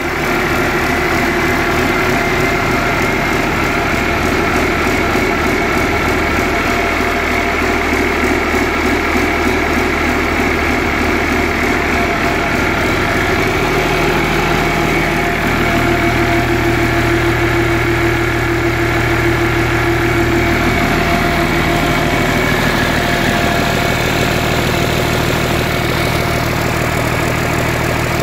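Yanmar 6CXL-DTGK six-cylinder turbocharged marine diesel engine running steadily, its tone shifting a little about halfway through.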